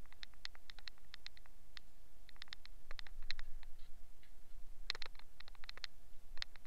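Water from a hose spraying onto a steel wheel and tyre, heard as an irregular patter of sharp ticks and drips, thicker about three and five seconds in, over a faint steady hum.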